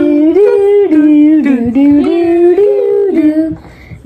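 A person humming a wordless waiting tune, holding notes that step up and down between a few pitches, with a short break near the end.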